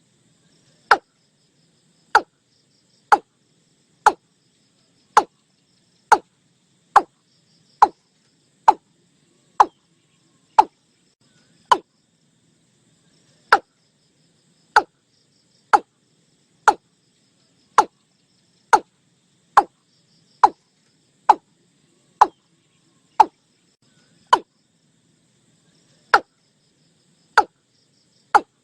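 Watercock calling: a long series of short, clipped notes, about one a second, with two brief pauses, about twelve and twenty-four seconds in. Faint insects or frogs sound in the background.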